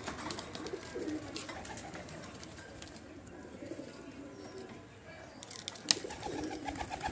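Tumbler pigeons cooing, the low repeated coo of a male puffed up and courting its mate. A few sharp clicks come through it, the loudest about six seconds in.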